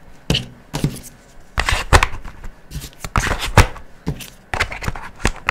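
Plastic highlighter marker pens being slid one by one into a clear plastic pouch: irregular bursts of rustling from the soft plastic, with sharp clicks of the pen casings knocking together.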